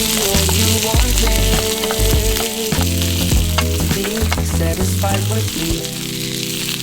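Food sizzling and crackling in a hot pan, over instrumental background music with a bass line.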